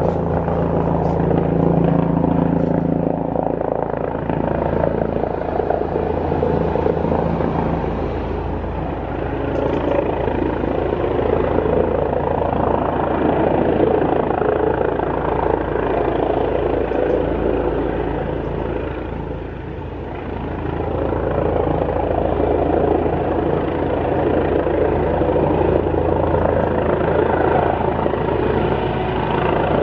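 Helicopter coming in to land: a loud, steady rotor and engine drone, briefly dipping in loudness about twenty seconds in.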